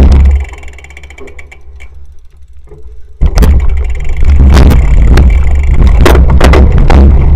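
Camera-mounted cyclocross bike: heavy wind rumble and jolting knocks over a rough dirt course. The rumble drops away for about three seconds to faint fine ticking while the bike is pushed up a steep bank, then returns loud with repeated knocks once riding resumes.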